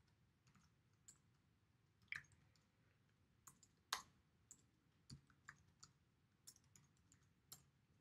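Faint, slow and irregular keystrokes on a computer keyboard: about fifteen scattered clicks with pauses between, the loudest about two and four seconds in.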